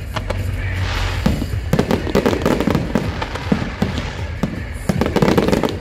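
Aerial fireworks display: a rapid series of bangs and crackling bursts, with overlapping explosions and a low rumble underneath.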